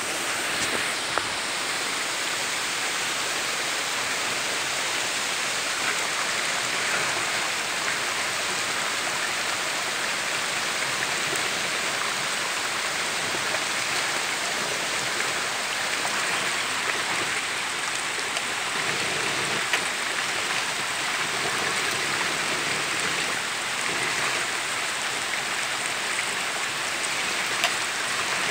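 Shallow rocky creek running steadily over stones, with a few sharp clicks now and then.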